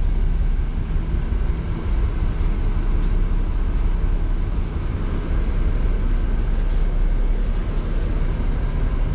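Steady low rumble of an old air-conditioned coach bus, heard from inside the cabin: engine and air conditioning running, with a few faint knocks.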